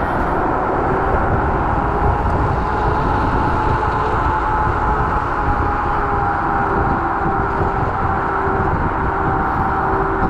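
Wind and road noise on the camera microphone during a ride on a Kaabo Wolf Warrior electric scooter, with a steady whine that drifts slightly in pitch.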